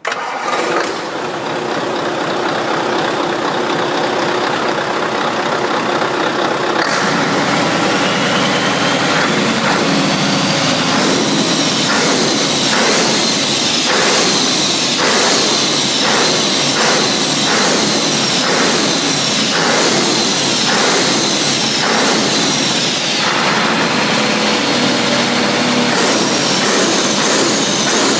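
Scania DC9-series five-cylinder diesel truck engine running. It comes in suddenly at the start, with a high whine from about a third of the way in and a regular pulsing through the middle.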